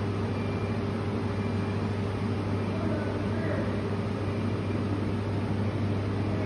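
Steady machine hum and fan noise of a handheld fiber laser welding machine running at idle, with a low even drone and no change in pitch or level.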